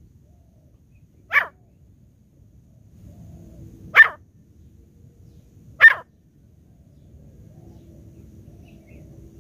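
Caged grey francolin (teetar) giving three short, sharp single calls a second or two apart, the last two the loudest.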